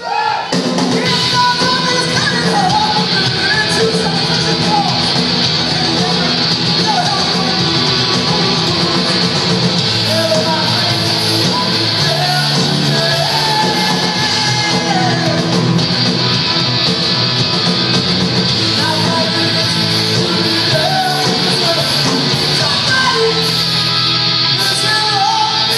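Live punk rock band playing loud through the PA, with electric guitars, drums and shouted singing, the song kicking in at full volume right at the start.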